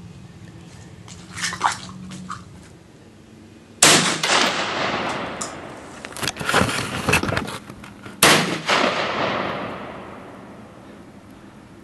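SKS semi-automatic rifle fired twice, about four seconds apart, each shot a sharp crack followed by a long echo dying away, with fainter sharp pops in between.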